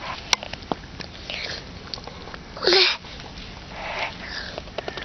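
A pet sniffing and biting at snow as it eats it: three short, noisy snuffling breaths, with a few sharp crunching clicks near the start.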